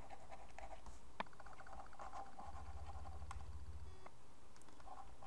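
Faint room tone with light clicks and scratching of a stylus writing on a pen tablet, with one sharper tick about a second in.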